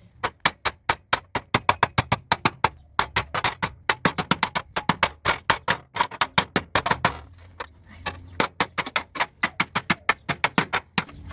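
A rapid, uneven series of sharp knocks, about four or five a second, with two short pauses.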